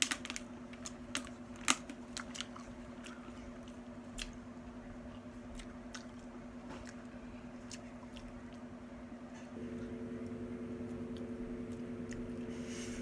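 Close-up eating: crunchy bites and chewing, loudest in the first few seconds. A steady low hum runs underneath and gets louder about two-thirds of the way through.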